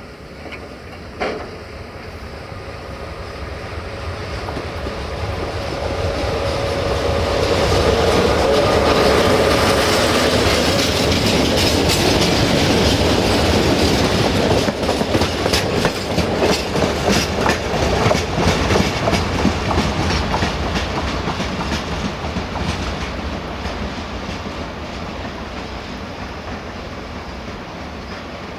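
CFR Marfa LDH diesel-hydraulic locomotive running loud as it approaches and passes, followed by a train of covered hopper wagons rolling by with a quick run of clickety-clack from the wheels over the rail joints. The noise builds over the first third, peaks as the locomotive goes past, and fades as the train pulls away.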